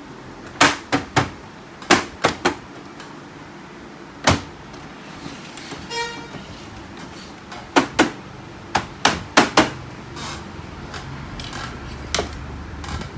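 Irregular sharp clicks and knocks of plastic parts and covers being handled and snapped into place on a Canon MF4820d laser printer, with one short electronic beep about six seconds in.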